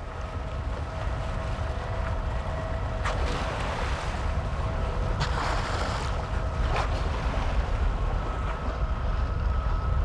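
Boat engine running steadily on open water, with a low wind rumble on the microphone and a faint steady whine; a short rushing hiss about five seconds in.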